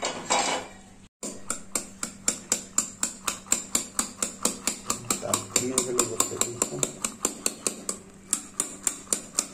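Wire whisk beating egg batter in a steel tumbler, the wires knocking against the metal sides in a fast, even rhythm of about five clicks a second.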